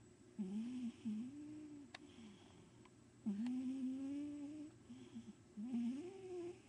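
Old, overweight house cat snoring: four snores, each a humming tone that bends up and down, with breathy hiss around them.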